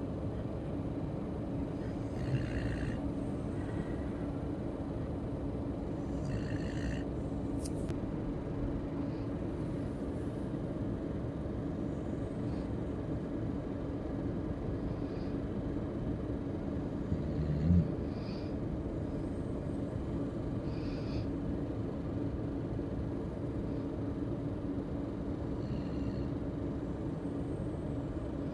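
A sleeping pet snoring, with a short wheezy breath every few seconds over a steady low hum. A soft low thump comes a little past halfway.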